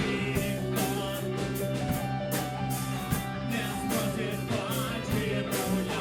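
Rock band playing a song, with electric guitar, bass and a steady drum beat.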